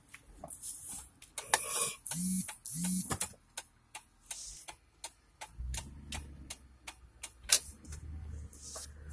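A run of sharp clicks and taps, with two short low hums about two and three seconds in. A low steady rumble starts abruptly a little past halfway and continues under the clicks.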